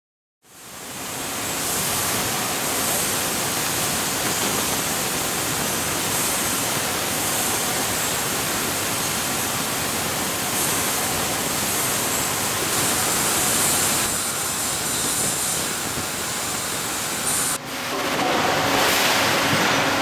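Steady din of a machine-shop floor with many machines running: a dense, even hiss that fades in within the first second. There is a brief dip and a shift in tone near the end.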